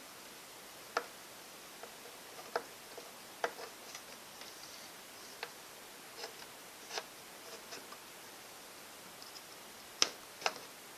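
Irregular sharp metal clicks and light scrapes of a screwdriver prying at the bands and drums of a Ford Model T planetary transmission, the loudest clicks coming near the end.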